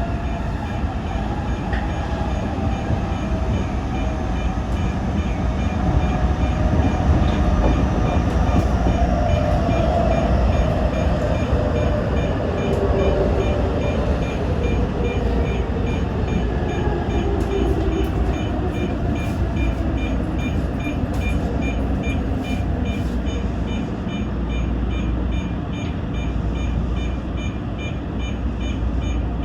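Toyo Rapid Railway 2000 series electric train slowing for a station stop: its motor whine falls steadily in pitch over the rumble of the running gear as it brakes. From about halfway on there is a fast, evenly repeating high electronic beeping.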